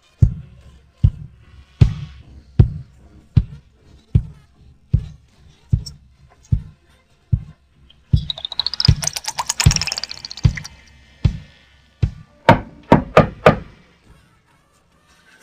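Cartoon sound effects: a steady run of dull thumps, a little over one a second, with a shimmering rising-and-falling sweep in the middle, then four quick, sharper knocks near the end.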